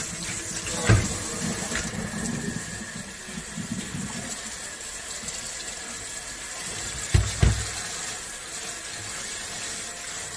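Kitchen tap running into a stainless steel sink as salted eggplant slices are rinsed by hand in a colander and bowl. A few short dull knocks come through: one about a second in, and two in quick succession past the middle.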